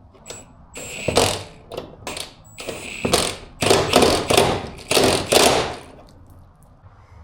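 Ratcheting tool working a trailing-arm nut in a series of about a dozen short strokes, roughly two a second, stopping about six seconds in.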